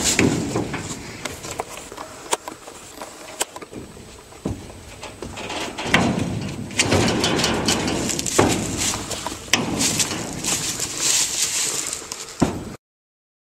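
A horse's hooves knocking and thudding on the floor of a steel stock trailer as it steps in and moves about, with scuffling in between. The sound cuts off abruptly near the end.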